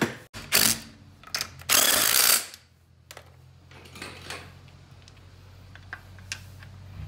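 An alloy wheel and tire being fitted onto a car's front hub: a couple of knocks, a loud brief scraping rush as the wheel goes on, then scattered light metallic clicks.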